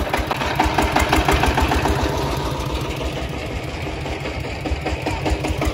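Single-cylinder diesel engine of a công nông farm tractor idling with a steady, even chugging. A run of sharper ticking rides over it for the first couple of seconds.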